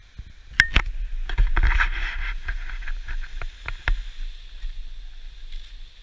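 Wind rumbling on a handheld action camera's microphone over a steady hiss, with several sharp knocks and rubbing noises in the first few seconds from handling the selfie stick.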